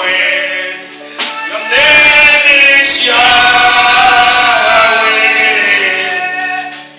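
Gospel worship singing: voices hold long notes, fading briefly about a second in before swelling again.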